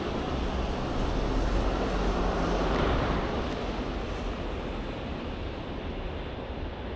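A vehicle driving past on a slushy, snow-covered street: tyre hiss and engine rumble swell to a peak about three seconds in, then fade away.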